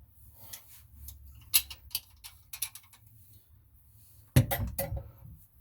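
Scattered light clicks and knocks of hands and fittings handled under a bathroom sink while a faucet supply line is being unscrewed, with a louder cluster of knocks about four and a half seconds in.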